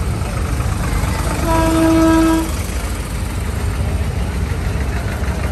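Diesel tractor engines running as the tractors roll past at low speed. About a second and a half in, a horn sounds once for about a second.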